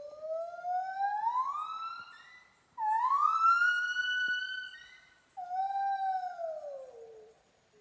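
Gibbon singing: three long, pure whooping notes. The first climbs slowly, the second swoops up and holds high, and the third slides down and fades.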